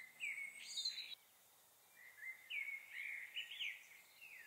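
Faint songbird chirping: a short burst of quick sliding notes, then after a brief pause a longer run of twittering calls that fades out.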